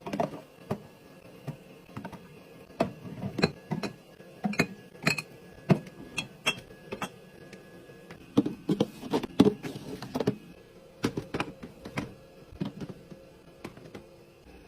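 A quick, irregular run of taps, clicks and clunks of food packages and plastic containers being handled and set down while restocking a fridge or pantry, busiest in a flurry a little past the middle.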